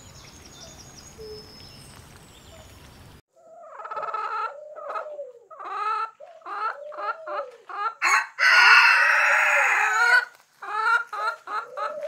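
Swamp ambience of insects, birds and frogs at a low level, which cuts off abruptly about three seconds in. Then hens cluck in short repeated calls, and a rooster crows loudly for about two seconds near the end.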